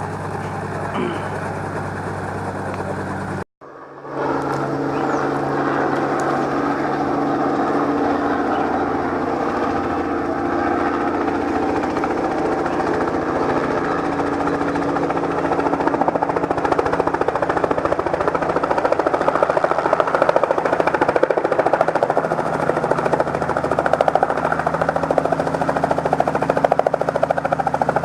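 Helicopter engine and rotor running steadily with a rapid chop, heard from close by or aboard. The sound drops out briefly about three and a half seconds in, then carries on slightly louder.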